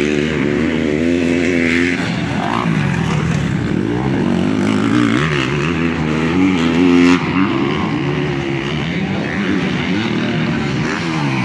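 Motocross dirt bike engines revving hard and dropping off as riders race the track. The pitch rises and falls again and again, with more than one bike heard at once, and it is loudest about seven seconds in.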